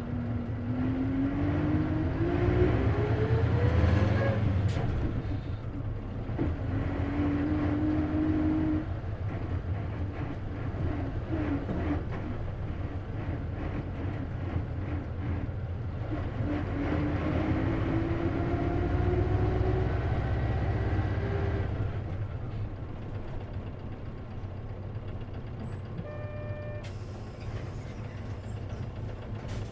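Isuzu KC-LV380N city bus heard from inside, its engine running under way with a whine that rises in pitch as the bus accelerates: once at the start and again later. After that it settles quieter, with a short electronic beep near the end. The whine is the odd noise this bus makes, which the uploader thinks may be a symptom of its manual transmission.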